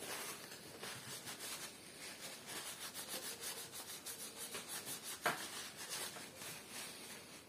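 Paper tissue wiping over the metal plate and gear housing of an embroidery machine's thread catcher assembly: faint, quick, repeated rubbing strokes, with one sharper click a little over five seconds in.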